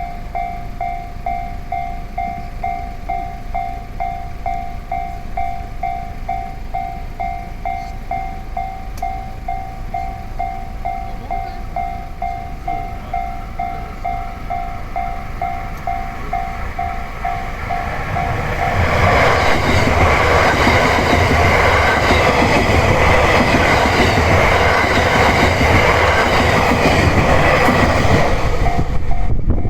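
Japanese level crossing's warning bell ringing steadily, about two rings a second; from about eighteen seconds in a train passes over the crossing, its rumble and wheel clatter getting louder and drowning out the bell.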